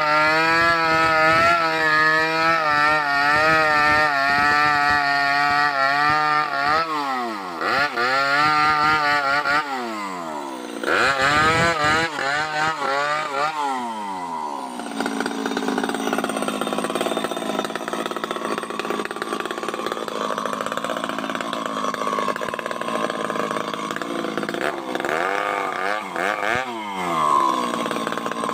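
Two-stroke chainsaw running at full throttle, high and steady, for the first six seconds or so. Its revs then drop and climb back twice. For the second half it runs at a lower, uneven speed, with a couple of short revs near the end.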